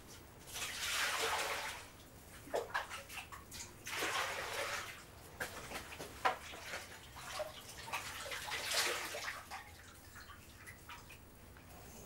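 Water splashing in a basin as a man washes his face with his hands, scooping and splashing in three main bouts with drips and small splashes between them.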